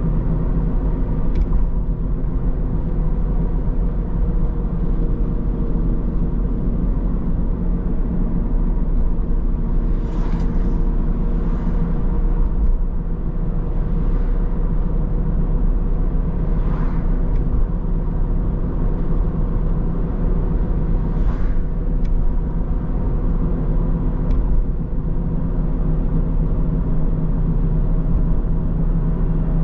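Steady road and engine rumble of a car being driven, with several short whooshes in the middle stretch.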